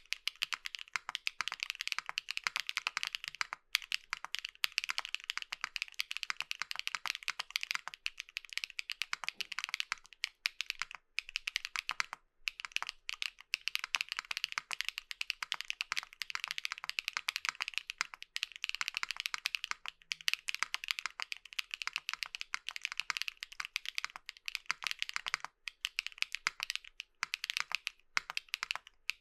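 Steady fast typing on a Tess65 mechanical keyboard with lubed Keygeek Muse linear switches (UPE U4+ stem) in a top-mounted aluminium plate: a dense run of crisp keystrokes with a neutral, full, smooth sound. The typing breaks off briefly about 4, 11, 12 and 25 seconds in.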